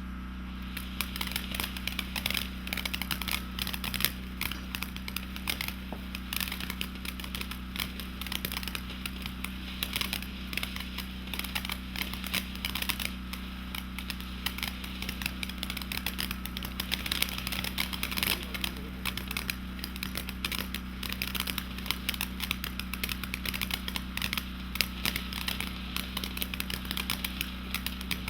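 Blackout Fountain firework burning and throwing out crackling stars: a dense, continuous crackle of rapid snaps that starts about half a second in.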